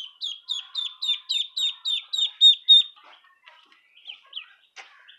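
Duckling peeping: a quick run of about ten loud, high calls, each falling in pitch, at roughly three or four a second. A few fainter peeps follow about four seconds in.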